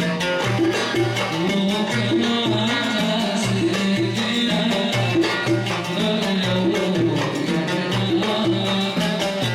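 Music: an Arabic song with a steady, driving percussion rhythm over a repeating bass line.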